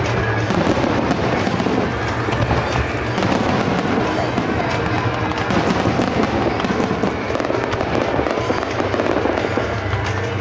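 Starmine fireworks barrage: a rapid, continuous run of firework bursts and crackling, over piano music from the show's speakers.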